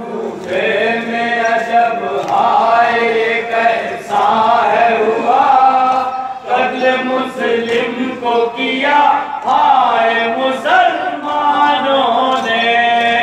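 Male voices chanting a noha, the Shia Muharram lament, in long sung lines that waver and hold without a pause.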